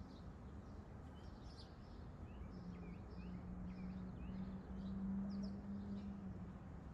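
Small birds chirping, many short high calls and quick downward-swooping notes, with a steady low hum that swells through the middle.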